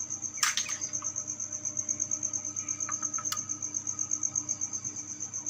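A cricket chirping steadily, a high pulsing trill repeating several times a second. Two sharp clicks, about half a second in and again past three seconds, come as eggs are handled in the incubator tray.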